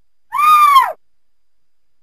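Mountain lion (cougar) giving one short, high call that falls in pitch at its end.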